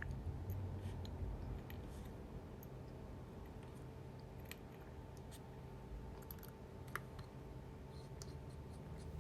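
Faint, scattered small clicks and light scratches of precision tools handling a phone's small internal parts and screws, over a steady low hum.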